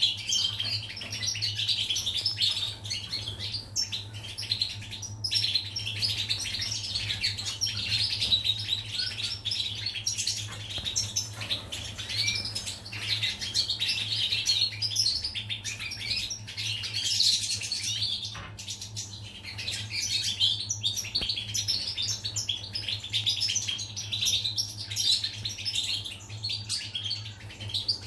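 European goldfinch singing: a long, unbroken stream of rapid twittering chirps and trills.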